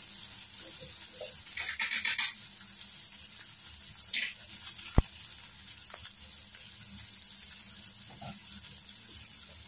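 Cubed elephant foot yam frying in oil in a stainless steel pan, giving a steady faint sizzle. A short rustling burst comes about two seconds in, and a single sharp click about five seconds in.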